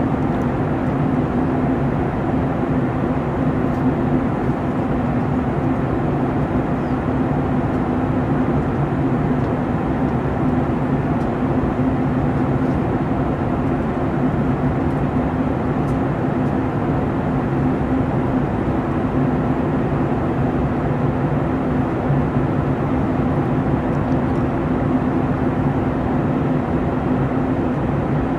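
Steady cabin noise of a Boeing 737-900ER in flight: a constant low drone from its CFM56-7B turbofan engines under a rush of airflow.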